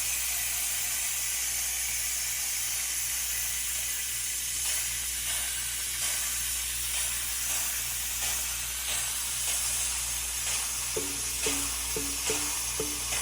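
Pressure cooker releasing its steam with a steady hiss as it is opened after cooking mutton. About eleven seconds in, background music with short repeated notes starts.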